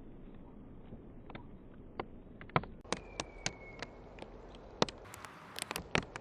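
Birds at a backyard feeder: irregular sharp taps and clicks over a faint outdoor background, with one brief falling whistle about three seconds in.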